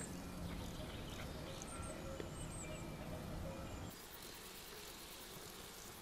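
Faint outdoor ambience of buzzing insects, with a few short high bird chirps in the first half. About four seconds in the sound changes abruptly to a quieter, steady insect buzz.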